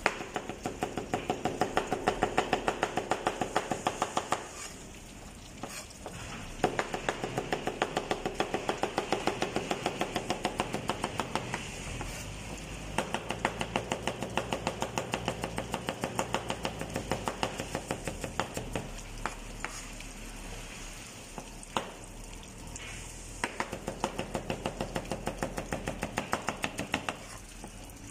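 Chef's knife rapidly slicing carrots on a plastic cutting board: quick, even knocks at about six strokes a second, in runs of several seconds with two short pauses.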